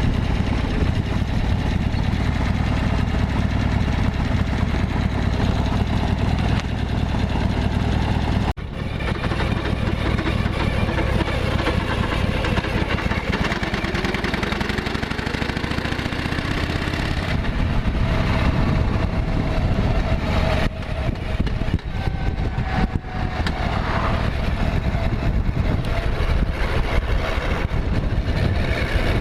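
Harley-Davidson XLH1200 Sportster's air-cooled V-twin running, its note rising steadily in pitch partway through as it pulls, with a brief break about eight seconds in. This is the bike whose abnormal engine noise the owner set out to record.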